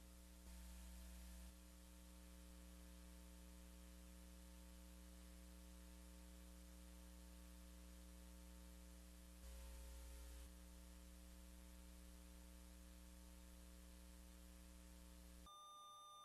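Near silence: a faint steady electrical hum with light hiss, swelling slightly for about a second twice.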